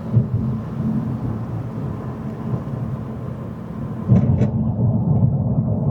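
Car cabin noise while driving: a steady low rumble of engine and tyres. About four seconds in it grows louder and duller, with a couple of short clicks.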